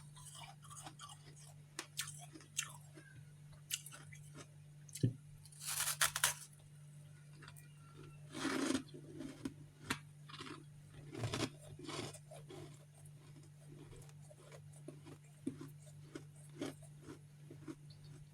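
Close-up crunching and chewing of refrozen freezer frost chunks, with loud crisp bites about six and eight and a half seconds in, then a run of steady chewing. A steady low hum sits underneath.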